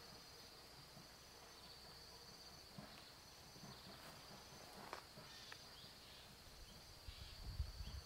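Faint, steady high-pitched insect trill, with a low rumble near the end.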